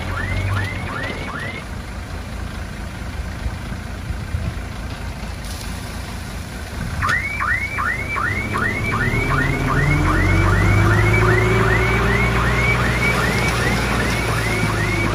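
Diesel engine of heavy earthmoving machinery running, its pitch rising about nine seconds in as it works harder. Over it a high squealing chirp repeats about three to four times a second, briefly at the start and again from about seven seconds on.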